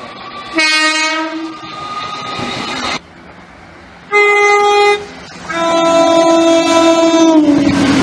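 Horns of approaching passenger trains: one blast about half a second in, then, after a cut, a short higher note followed by a longer lower note that drops in pitch near the end. The rumble of a train passing the platform starts as it ends.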